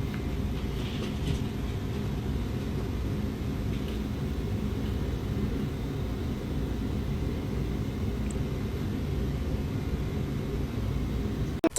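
Steady low rumbling noise that cuts off abruptly near the end.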